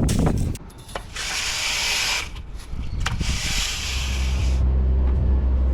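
Inside a truck cab: the outside noise cuts off with a clunk, two bursts of hissing follow, then the truck's engine runs at idle with a steady low hum from about four seconds in.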